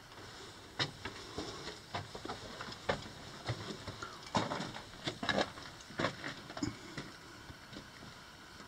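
Footsteps crunching on gravel and broken rock along a mine tunnel floor, an irregular run of steps about one or two a second, the loudest around four to five and a half seconds in.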